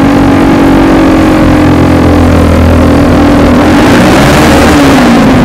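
Single-cylinder motorcycle engine of a Yamaha Jupiter MX running at steady revs through its exhaust while riding, with road and wind noise. The engine note dips briefly about four and a half seconds in and then picks up again.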